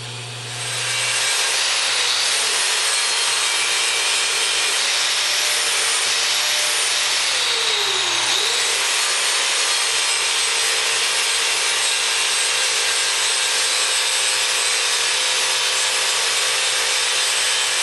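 Angle grinder with an abrasive disc grinding cast iron at the edge of a stove door. It spins up about half a second in and runs steadily, and its whine dips in pitch about eight seconds in, then comes back up.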